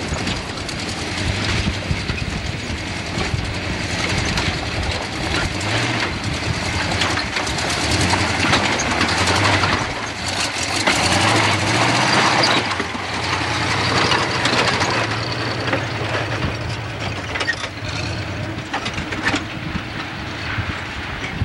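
A Jeep engine running steadily at low speed as the Jeep crawls over loose rock, with a low drone and scattered knocks and crunches of rock under the tyres.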